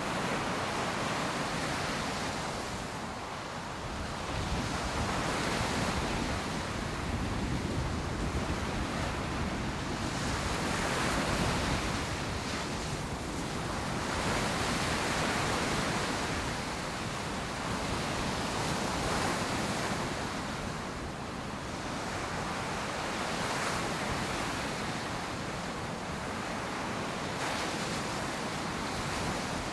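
Ocean surf breaking on a beach: a continuous wash of waves that swells and eases every few seconds, with some wind on the microphone.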